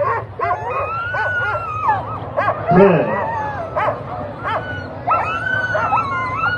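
A team of harnessed Alaskan husky sled dogs whining, howling and yipping over one another, several dogs at once: long high wavering whines with short yips in between, the excited clamour of sled dogs eager to run while held back before the start.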